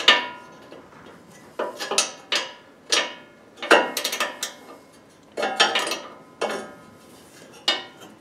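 A wrench working the shear bolt on a Honda HSS1332 snowblower's right auger, clinking and clanking against the metal auger in irregular clusters of sharp, briefly ringing knocks, about one cluster a second.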